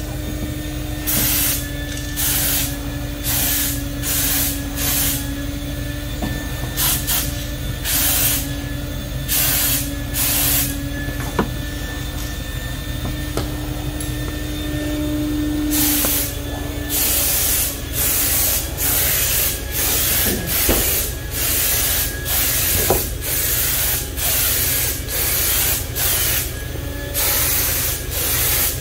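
Spray gun spraying metal-flake paint in short hissing bursts, each trigger pull lasting under a second, repeated one after another with a pause of a few seconds near the middle. A steady hum from the air compressor's motor runs underneath.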